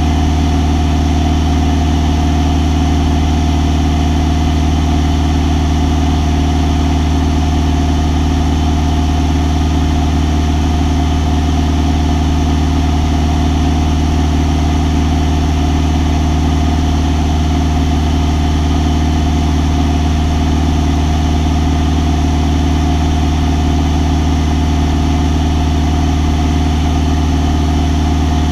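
Single-engine light aircraft's engine and propeller running steadily in level flight, heard from inside the cockpit: a loud, even drone with strong low tones that stays the same throughout.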